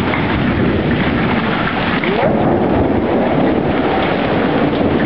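Heavy rain with large, golf-ball-sized hailstones coming down, a dense, steady clatter of many small impacts.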